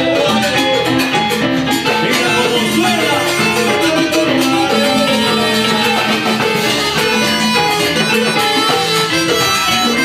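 Live Cuban band playing salsa-style dance music in an instrumental stretch without singing.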